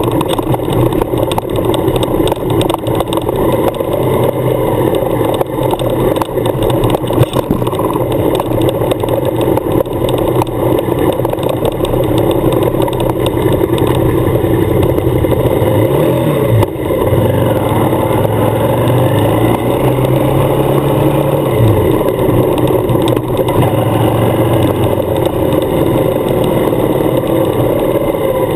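Suzuki adventure motorcycle's engine running under way on a gravel road; about halfway through its note bends, holds steady for a few seconds, then drops.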